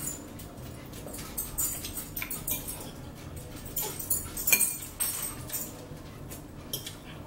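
Eating at the table: chewing and mouth smacks over salad, with forks clicking against ceramic bowls and plates in an irregular run of short, sharp clicks. The loudest click comes about four and a half seconds in.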